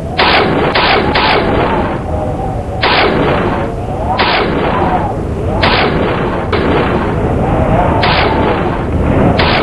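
A series of about eight loud bangs at irregular intervals, the first three in quick succession, over a continuous wavering tone and a steady background.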